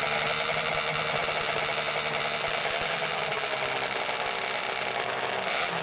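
Suzuki RG500 two-stroke square-four engines idling together with a busy, rattly note. The pitch rises briefly near the end as a throttle is blipped.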